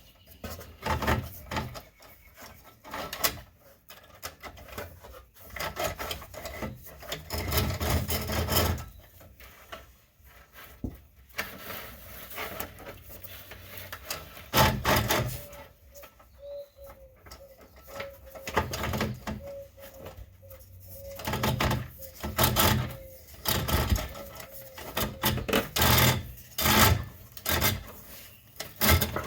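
Steel security cable of a catalytic-converter clamp being worked through the car's underbody: irregular scraping and rubbing with knocks and rattles, coming in uneven spurts.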